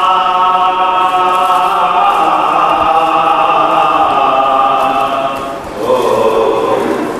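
Male voices chanting a marsia, the Urdu elegy, unaccompanied, in long held notes that slide from one pitch to the next. The line dips and breaks off briefly near the end before the next phrase begins.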